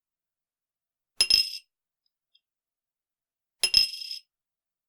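A coin dropped twice onto a bowl from a short height: two separate strikes about two and a half seconds apart, each a short clatter with a bright, high ring that dies away within about half a second.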